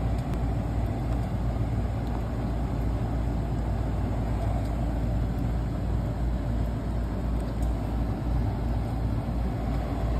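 An engine running steadily, a continuous low drone.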